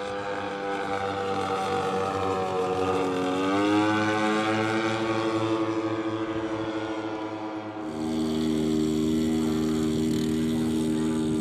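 Twin propeller engines of a giant-scale radio-controlled Grumman S-2 Tracker model in flight, a steady drone that rises in pitch about three to four seconds in. About eight seconds in the sound changes abruptly to a slightly louder, steady drone.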